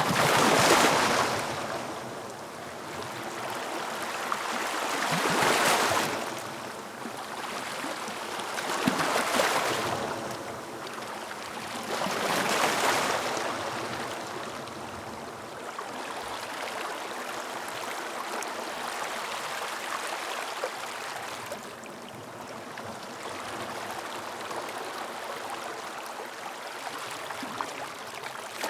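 Sea waves breaking and washing up a beach: four louder surges a few seconds apart in the first half, then a steadier wash of water.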